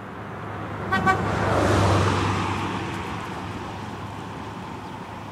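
A car drives past: its noise swells to its loudest about two seconds in and then fades away. A short horn toot sounds about a second in, just as the car approaches.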